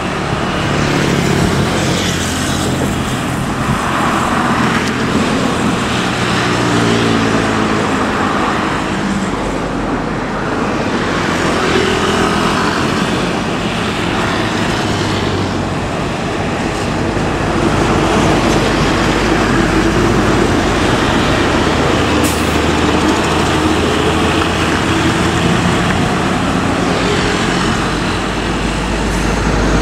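Diesel coach buses driving past in road traffic. Their engines rise in pitch as they speed up, about a quarter of the way in.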